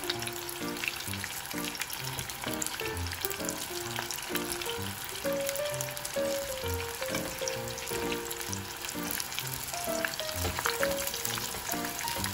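Lumpia deep-frying in a pot of hot oil: a steady sizzle and crackle of bubbling oil. Background music with a melody and a regular low beat plays underneath.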